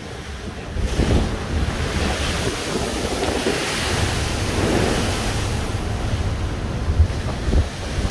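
Storm waves breaking against a seawall and over a promenade railing, with spray and strong wind rumbling on the microphone.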